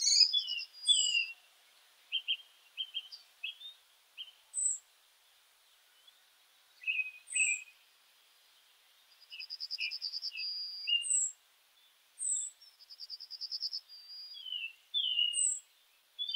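Small songbirds chirping and calling in short, separated bursts, including two rapid trills, one about ten seconds in and one around thirteen seconds, and several high, thin down-slurred notes.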